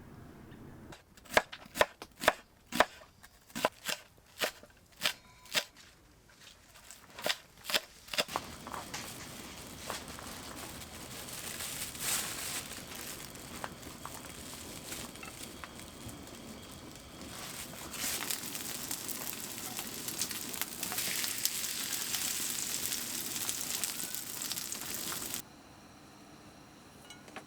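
About a dozen sharp knocks, like a knife chopping on a cutting board, then a long steady sizzle of food frying, which cuts off suddenly near the end.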